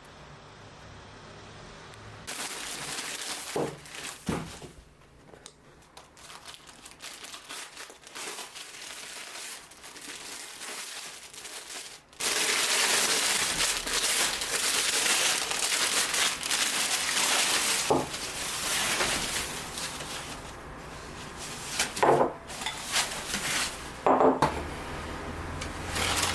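Crinkling and rustling of packaging being handled, with a few sharp knocks like dishes set down, the longest stretch of rustling in the middle.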